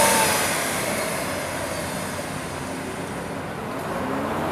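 Lamborghini Aventador's V12 engine pulling away, its exhaust note fading as the car drives off. Near the end it swells again with a rising pitch as the engine revs up.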